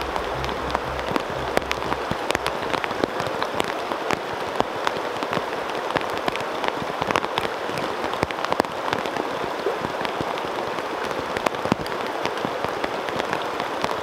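Steady rain, with a dense patter of sharp drop taps close by, over an even hiss of falling water.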